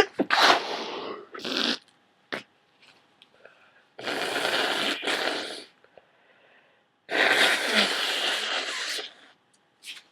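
A person with a heavy, runny head cold sneezing wetly and blowing their nose: a sudden burst right at the start, then two long noisy blasts about four and seven seconds in.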